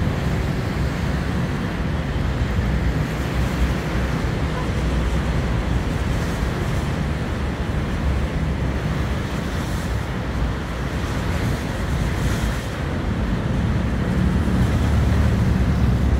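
Rough sea breaking against concrete breakwater blocks: a steady rush of surf with splashes, and wind rumbling on the microphone that grows louder near the end.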